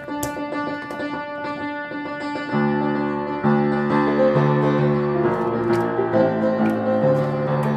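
Piano playing a practice piece. About two and a half seconds in, a fuller, lower accompaniment comes in and the playing grows louder.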